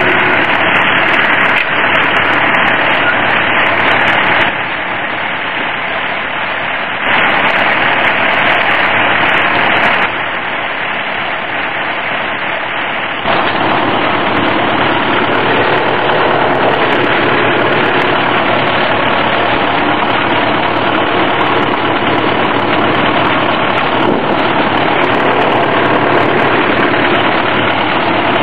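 1951 Farmall M tractor's four-cylinder engine idling steadily. The sound drops abruptly and comes back twice in the first half.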